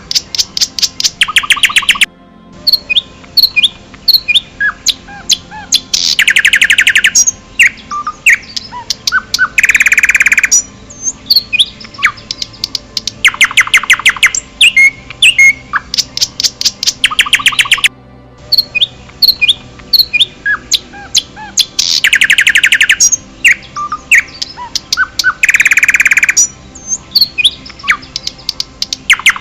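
Several songbirds chirping and singing fast trills. The recording loops about every 16 seconds, with a brief dropout where it restarts.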